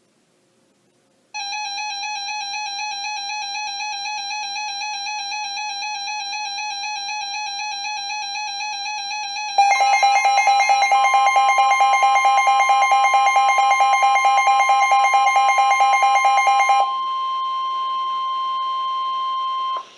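Weather-radio alert tones for a flood warning. An electronic alarm with a fast warble starts about a second in and turns louder and rapidly pulsing about eight seconds later, while the steady 1050 Hz NOAA Weather Radio warning tone joins underneath. Near the end the warbling alarm stops, and the steady tone plays alone for about three seconds before cutting off.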